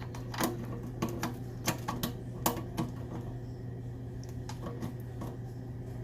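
Scattered, irregular metal clicks and taps of bolts, washers and hand tools being handled while bolts are put back to hold a dishwasher's booster heater, over a steady low hum.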